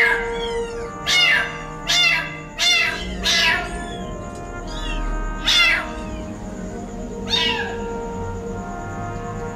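Young kitten crying: about eight loud, high meows that fall in pitch, roughly one a second at first and then more spaced out. Background music plays underneath.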